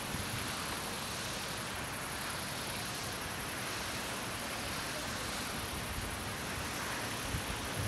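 Steady outdoor background hiss with an uneven low rumble, typical of open-air ambience with light wind on the microphone.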